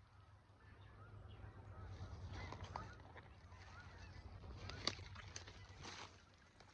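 Geese honking faintly in the distance, a few scattered calls, with a couple of sharp snaps near the end.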